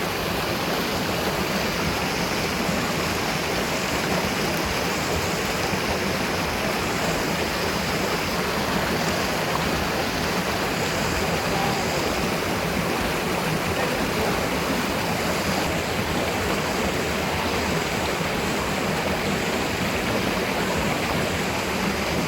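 Waterfall: a steady, even rush of falling water, unbroken throughout.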